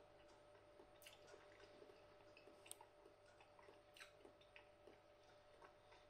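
Near silence with faint chewing: a mouthful of soft noodles being chewed with the mouth closed, giving small, irregular wet clicks.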